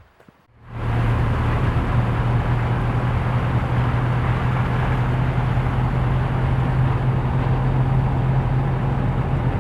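Vehicle on the move: a steady low engine hum under loud road noise, starting about a second in and cutting off abruptly near the end.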